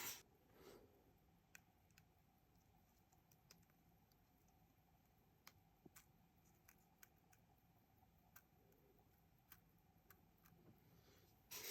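Sparse, faint clicks and light taps of small watchmaking tools on watch parts at a bench, in near silence. There is a louder knock right at the start and a short rustle near the end.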